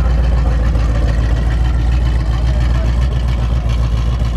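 Engine idling steadily, a deep, even rumble.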